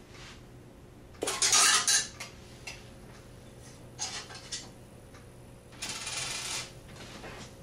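Metallic clicks and rattling from a Gray/Western 50G three-slot payphone's mechanism being worked by hand, in three short bursts with small clicks between.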